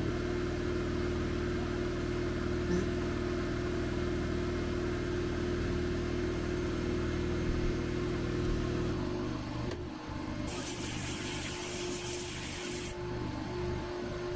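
Steady motor hum from the sandblast cabinet equipment running. About ten seconds in comes a hiss of about two and a half seconds from the blast gun's compressed air.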